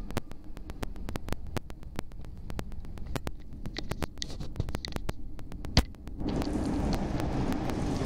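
CTA 2600-series rapid-transit car running, heard from inside: a low rumble with a fast, irregular run of sharp clicks. About six seconds in, the running noise steps up suddenly to a louder, steady rush.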